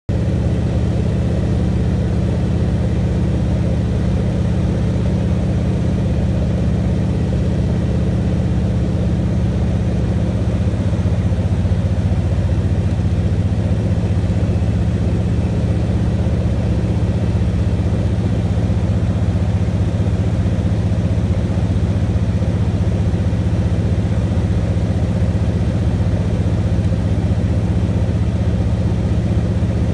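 Single-engine ski plane's piston engine and propeller droning steadily, heard inside the cockpit while descending toward a glacier landing. The tone shifts slightly about halfway through.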